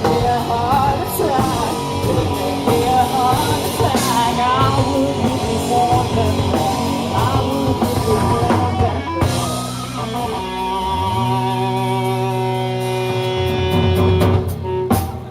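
Rock band playing with electric guitars, bass and drums, then a final chord held for several seconds after a sliding bass note, cut off sharply near the end.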